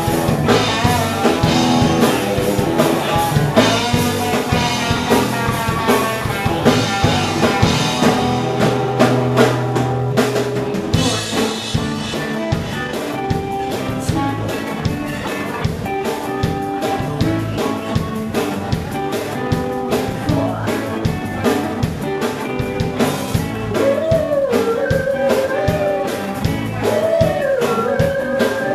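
Live rock band playing: electric guitars, bass guitar and a drum kit keeping a steady beat, with a wavering lead line over the top in the last few seconds.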